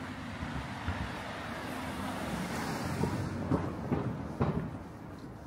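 A car passing on a city street: tyre and engine noise swells to a peak about halfway through and then fades, with a few sharp knocks in the second half.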